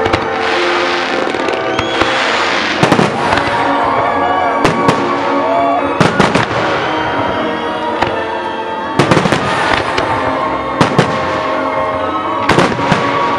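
Aerial firework shells bursting in a series of sharp bangs, coming in clusters every second or two, over loud music playing with the display.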